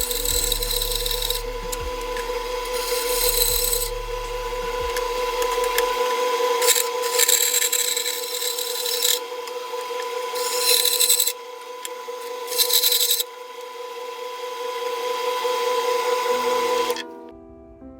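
Homemade metal cut-off saw running with a steady whine while cutting metal, the harsh cutting noise coming and going in several stretches. It stops near the end.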